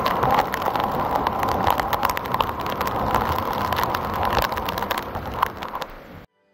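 Water falling from above and splashing directly onto a phone held in it: a dense rush of water thick with drop and splatter impacts on the microphone. It cuts off suddenly near the end.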